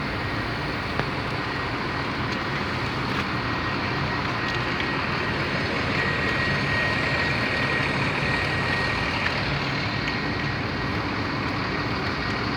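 Stopped traffic in the rain: engines idling, with a low hum under a steady hiss.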